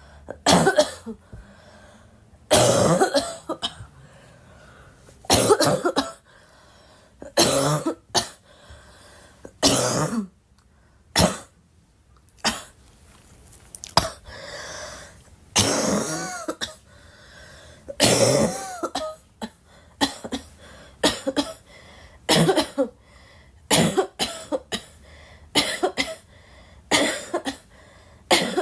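A girl coughing repeatedly in single coughs, at first every two to three seconds, then coming about once a second in the second half.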